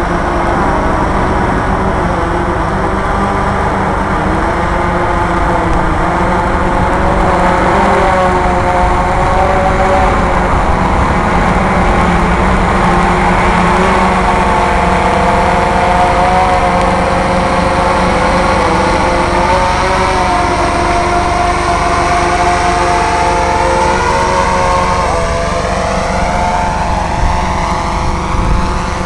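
DJI S800 hexacopter's six electric motors and propellers humming steadily, several tones shifting in pitch as the drone descends and sets down.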